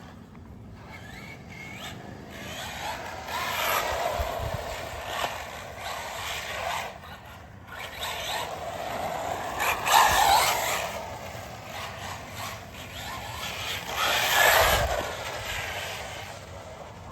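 Small electric RC car running: its motor whine rises and falls with the throttle over a grainy rush of tires on the ground, swelling loudest in three bursts of acceleration.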